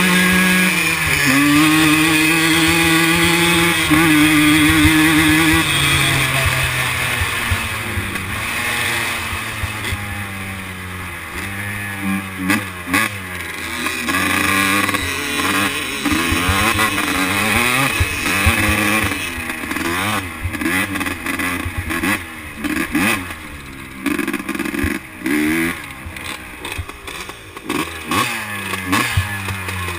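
Quad engines racing: one engine revs hard and climbs in pitch through the gears over the first few seconds. Then several engines rev up and down together, with frequent throttle lifts and gear changes.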